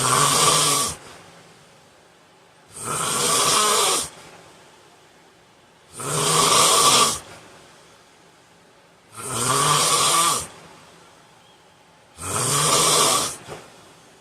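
A man snoring loudly in his sleep: five snores at an even pace, one about every three seconds, each lasting a little over a second.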